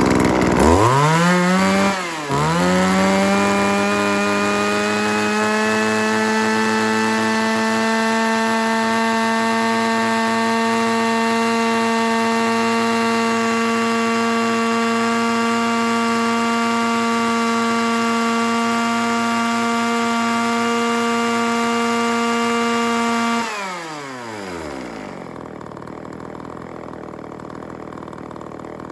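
Shindaiwa E300 32cc two-stroke chainsaw starting up: it catches and revs, dips briefly about two seconds in, picks up again, then runs steadily for about twenty seconds, its pitch creeping slightly up. Near the end it is shut off and the engine note falls away.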